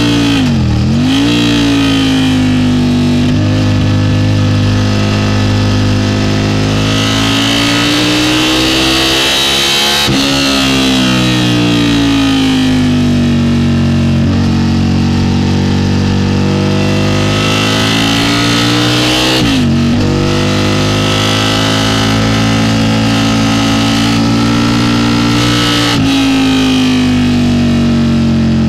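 Aprilia sportbike engine running hard through its exhaust, heard onboard at track speed with wind rushing past. The engine note dips sharply and climbs back four times: near the start, about ten seconds in, just before twenty seconds, and about two seconds before the end.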